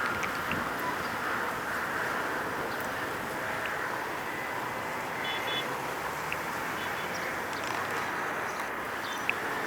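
Steady outdoor background noise, a hiss and rumble with no distinct event, and a few faint high chirps.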